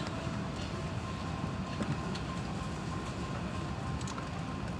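Steady low rumble of an Airbus A380's cabin air and aircraft systems, heard inside the passenger cabin, with a faint steady tone above it.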